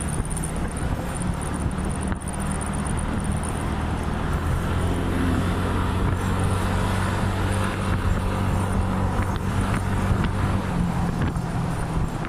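Motor scooter's engine running steadily under way at speed, with road and wind noise. The drone swells a little around the middle.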